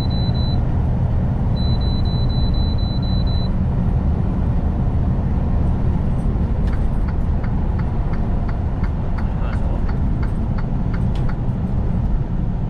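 Semi truck running down the road, heard as a steady low engine and road drone. Two quick runs of rapid high-pitched beeps come in the first few seconds, and a regular ticking about twice a second runs from about seven to eleven seconds in.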